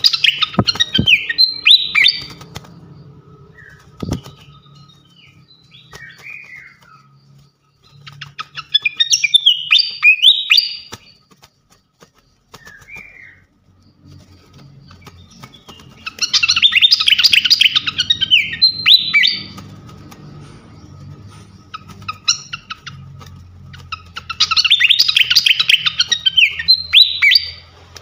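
A fantail (srikatan kipas) singing loud bursts of rapid chirping phrases, each about three seconds long, four times, about eight seconds apart, with a few short single calls in between.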